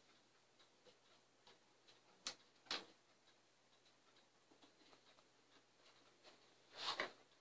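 Wooden lid of a large table-top Symphonion disc music box being unlatched and lifted open: two sharp clicks about half a second apart, then a louder knock near the end, with near silence between.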